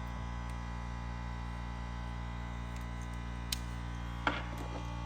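A steady electrical hum runs throughout. Over it comes a sharp click about three and a half seconds in, then a short metallic clatter a little after four seconds, like tools being handled.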